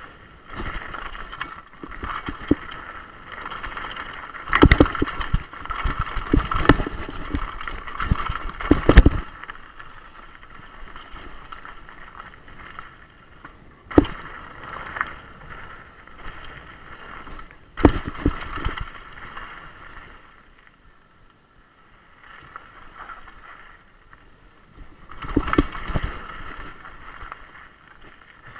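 Mountain bike riding fast down a rocky gravel trail: tyres crunching over loose stones and the bike rattling, with hard knocks as it hits rocks and drops. A burst of heavy knocks comes about four to nine seconds in, and single hard hits later, with a quieter smoother stretch in between.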